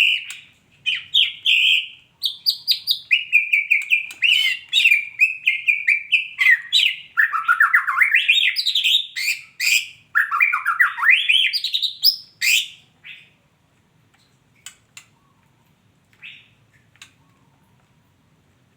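Female white-rumped shama calling: a rapid, unbroken run of quick notes that step up and down in pitch for about twelve seconds, then only a few scattered short chips.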